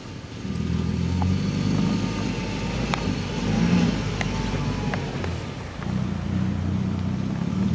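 A motor vehicle's engine running: a low, steady hum that comes in about half a second in and swells and eases, with a few faint clicks over it.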